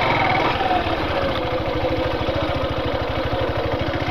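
Yamaha Factor 150's single-cylinder four-stroke engine running steadily at low revs, an even low pulsing with a slightly wavering note above it.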